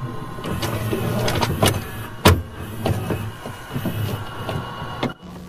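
Electronic sound-effects stinger of glitchy, machine-like whirring with a low hum and many sharp clicks, a loud hit about two seconds in, cutting off abruptly near the end.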